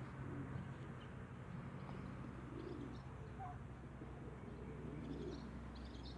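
Young Light Brahma chickens giving a few soft, low clucks, with faint high chirps between them, over a steady low hum.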